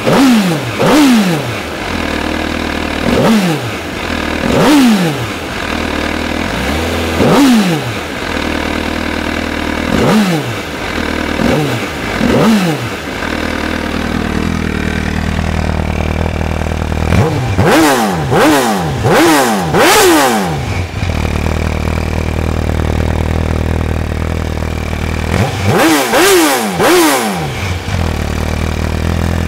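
MV Agusta F4 1078's inline four-cylinder engine on its stock exhaust, idling and being blipped: sharp throttle revs that fall straight back to idle. The blips come one at a time at first, then in quick bursts of four and later three, with steady idle between.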